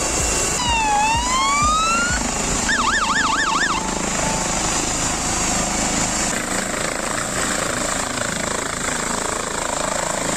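Ambulance helicopter running on the ground with its rotor turning: a steady rush of rotor and turbine noise. About half a second in, a siren-like tone sweeps down and back up, then warbles quickly for about a second.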